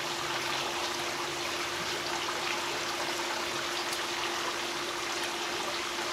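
A steady rushing noise like running water, with a faint steady hum underneath.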